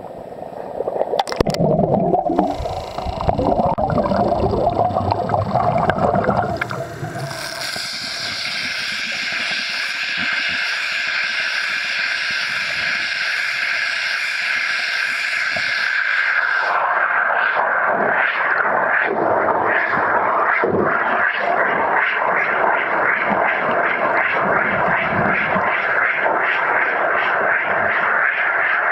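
Water splashing and rough handling noise at the surface for the first seven seconds, then a steady rushing hiss of water under the surface at a running self-cleaning pump intake screen. About halfway through the rushing grows denser, with irregular ticking.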